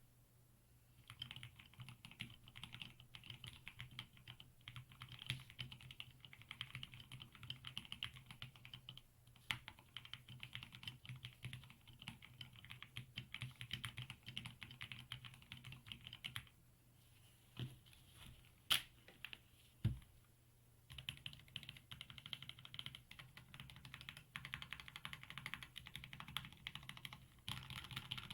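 Typing on an Epomaker EP84 mechanical keyboard with lubed Gateron Yellow linear switches, XDA keycaps and case foam, plate foam and tape mods: quick continuous keystrokes starting about a second in. Partway through, the typing pauses for a few seconds, broken by three single louder key strikes, then resumes.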